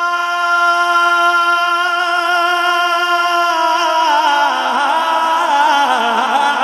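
A man's solo voice singing a naat, a devotional Urdu song. He holds one long steady note for about three and a half seconds, then breaks into a wavering, ornamented run of notes.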